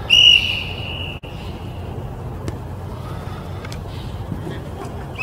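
Referee's whistle blown once, a single steady blast of about a second. A steady low rumble runs underneath, with a few faint knocks later on.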